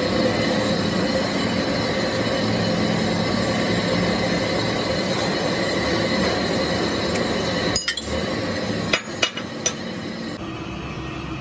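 Steady workshop hum with a few faint tones, then about four sharp metallic clinks near the end as steel truck-differential parts (spider gear and cross shaft) are handled on a steel bench.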